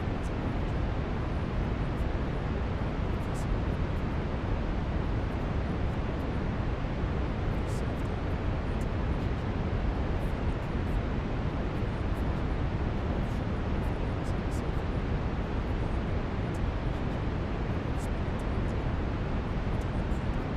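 Steady brown noise: a deep, even rushing hiss, heaviest in the low end.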